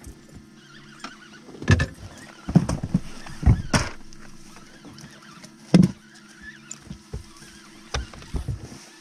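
Irregular thumps, knocks and splashy clatters in a fishing boat while an angler fights a hooked pike, with a faint steady low hum underneath.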